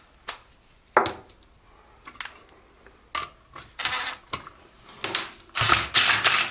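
A few separate metal clicks and clinks, then from about five and a half seconds in a socket ratchet clicking rapidly as a 10 mm bolt is turned.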